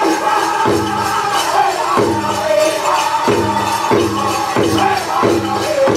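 Powwow drum group singing a contest song: several men's voices in unison over a big shared drum struck together in a steady beat.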